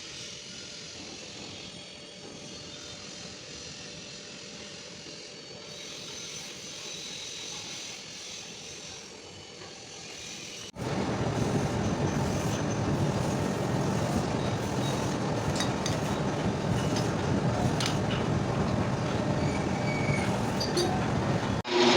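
Metalworking machinery running with a steady mechanical noise, quieter at first, then cut to a louder stretch with scattered clicks about halfway through.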